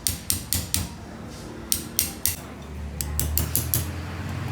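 Metal tools and parts clinking and tapping together in a series of sharp strikes, quickening near the end, with a low hum starting about three seconds in.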